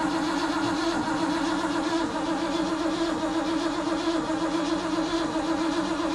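1979 Ford F-100's 302 V8 being cranked over steadily by the starter without firing. It is being turned over dry to pump oil up and build oil pressure, with no fuel in it yet.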